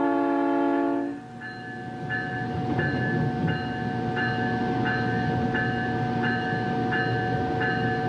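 South Shore Line electric commuter train street running: its horn sounds for about a second, then cuts off, and a bell keeps ringing at about one and a half strokes a second over the steady running noise.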